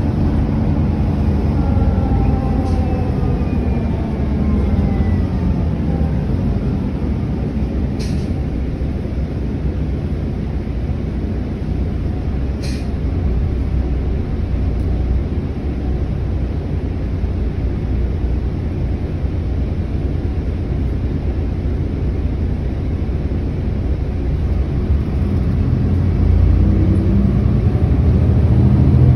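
Solaris Urbino 18 III articulated bus running with a steady low rumble. A whine falls in pitch over the first few seconds, two short clicks come about 8 and 13 seconds in, and near the end the sound rises in pitch and grows louder.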